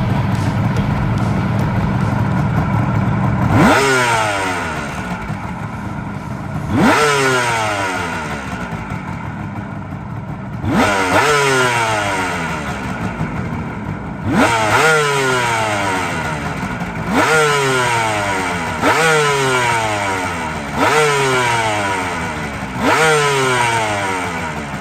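Suzuki GT380's air-cooled three-cylinder two-stroke engine, freshly overhauled, idling steadily and then blipped eight times. Each rev snaps up and falls away slowly back to idle, with the blips coming about every two seconds near the end.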